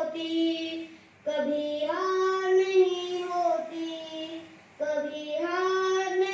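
A young boy singing a Hindi poem in a simple melody, in long held phrases, pausing briefly for breath about a second in and again near the end.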